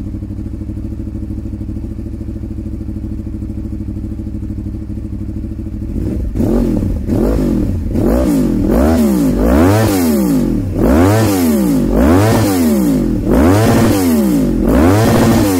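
Yamaha R1 inline-four sportbike engine on Akrapovic carbon slip-on exhausts, idling steadily for about six seconds, then blipped repeatedly: about a dozen quick revs that rise and fall back to idle.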